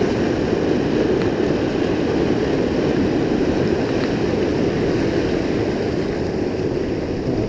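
Rushing white water of a mountain torrent, a steady rush heard close up as a runner wades through it.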